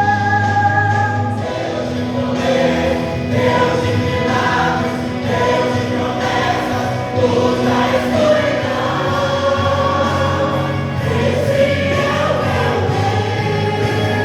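A vocal group singing a gospel song in harmony over steady instrumental backing with a low bass line.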